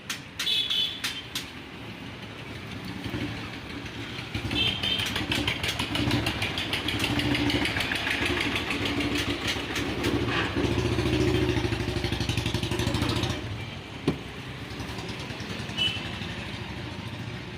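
A few sharp clicks, then a motorcycle engine running with a rapid firing beat. It grows louder, stays loud for several seconds, and drops off sharply about three-quarters of the way through.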